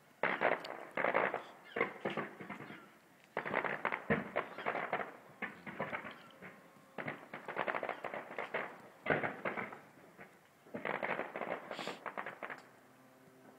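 Distant aerial fireworks display going off in repeated clusters of rapid bangs and crackles, each lasting a second or two with short pauses between.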